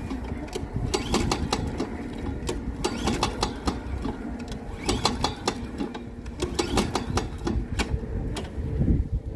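Snapper push mower's 163cc Briggs & Stratton engine being pull-started again and again, the recoil starter rattling and clicking as the engine turns over without ever firing: a new mower that will not start.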